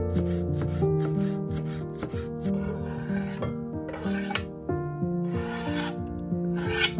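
Chef's knife chopping parsley on a bamboo cutting board in quick strokes, then the blade scraping the chopped herbs across the board several times, over background music.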